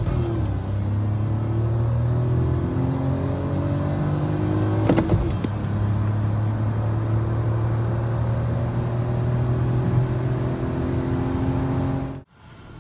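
Seat Ibiza's naturally aspirated 999 cc three-cylinder engine under full-throttle acceleration, heard from inside the cabin. Its note rises in pitch through the gears, broken by a gear change near the start and another about five seconds in. The sound cuts off suddenly near the end.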